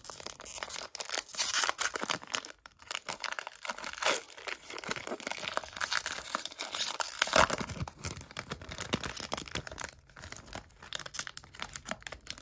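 Plastic trading-card pack wrapper crinkling and tearing as it is opened, an irregular crackle handled close to the microphone, loudest a little past the middle.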